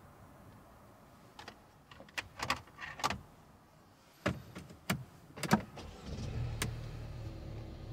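A series of sharp clicks and knocks inside a car, like handling things in the cabin, then the car's engine running with a low steady rumble from about six seconds in.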